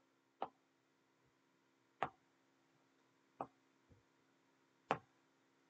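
Light, sharp clicks or taps from working the on-screen page, four of them irregularly spaced a second or more apart with a fainter one near the end, over a faint steady hum.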